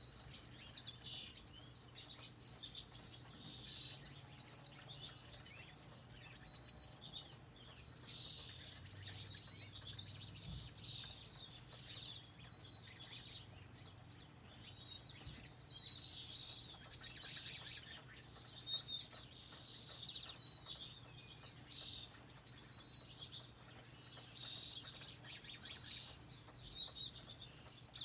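Finches singing: a continuous run of quick, high chirps and short trills that overlap. A faint steady low hum lies underneath.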